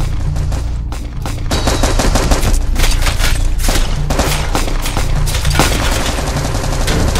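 Rapid gunfire from several guns at once in a shootout, shots overlapping almost continuously, with a brief lull about a second in. A low music score runs underneath.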